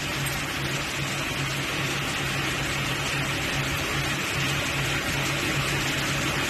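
Lampshade spot welding machine running idle with no weld fired: a steady low, slightly pulsing hum under an even hiss.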